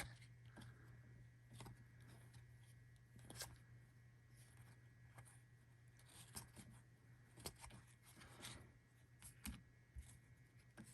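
Near silence with faint, scattered soft clicks and rustles of baseball trading cards being handled and slid through the hands, over a low steady electrical hum.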